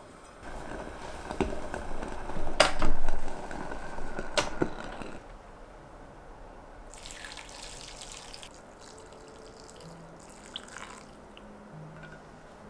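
Broth poured from a glass pot over thin noodles in a ceramic bowl, splashing and trickling, loudest a few seconds in. Two shorter pours follow in the second half.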